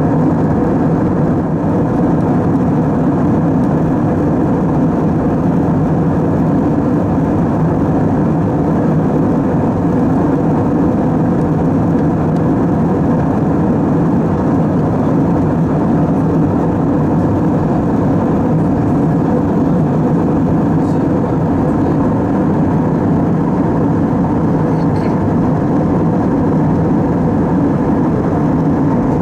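Steady cabin noise of an Airbus A320 in flight, heard from a seat near the rear: an even drone of the engines and airflow, without change.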